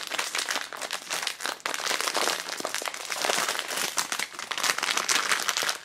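Foil blind-bag pouch crinkling steadily as it is handled and torn open by hand.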